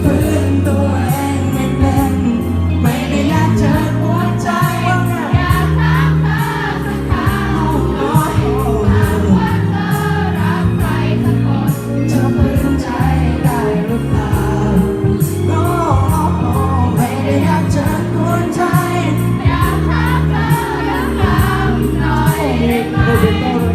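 Live Thai pop band music: a melodic singing line over bass and a steady drum beat.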